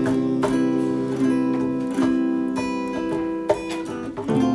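Acoustic guitar playing chords, each stroke ringing on, with a chord change near the end.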